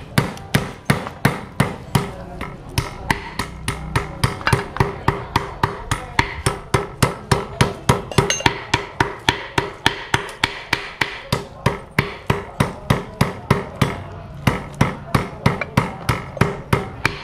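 Cleaver chopping goose meat on a chopping board, a steady run of sharp knocks at about four to five strokes a second.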